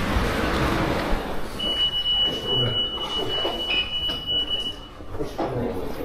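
A steady, high electronic beep held for about three seconds, starting a couple of seconds in, over a background of general shop noise.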